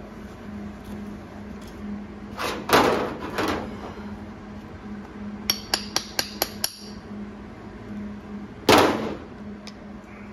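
MIG welder laying short tack welds on thin, old sheet metal at a low setting, kept low so as not to blow holes: a sputtering burst of arc, then a quick run of about six sharp tacks, and one more loud burst near the end.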